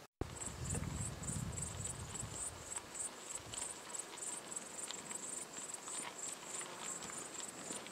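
Crickets chirping in a steady high-pitched pulse, about three chirps a second. A low rumble sits under it for the first few seconds.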